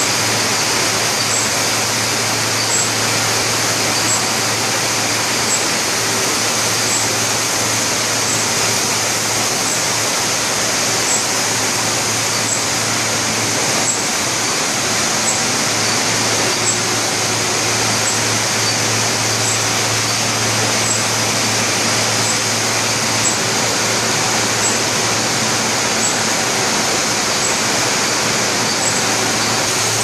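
Steady, loud hiss and low hum of a textile mill hall with its machines running and overhead high-pressure humidifier nozzles spraying fog. A faint high tick repeats a little more often than once a second.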